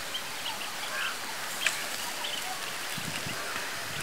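Steady hiss of an open fire under a tray of roasting chickens, with one sharp crackle about one and a half seconds in and faint bird chirps in the background.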